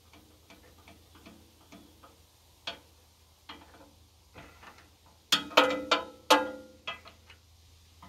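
Metal clicks and clanks from a backhoe's joystick control levers and linkage being worked by hand: light scattered ticks at first, then a cluster of louder clanks with a short metallic ring a little past halfway.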